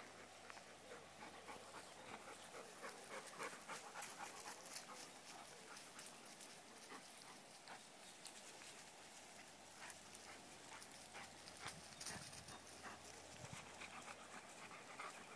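Faint rustling and crackling of large dogs walking and nosing through tall grass and brush, irregular small clicks throughout, with a dog panting.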